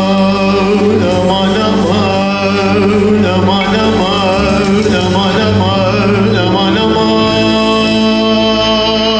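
A man singing long, wavering melismatic vocal runs in Arabic style into a microphone, over sustained electronic keyboard chords and bass, amplified through a PA. The ornamented vocal line settles into held notes in the last couple of seconds while the keyboard chords carry on.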